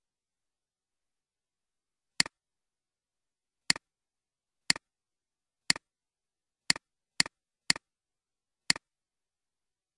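Computer mouse button clicks: eight sharp clicks, each a quick double tick, mostly about a second apart with a faster run near the end, separated by dead silence.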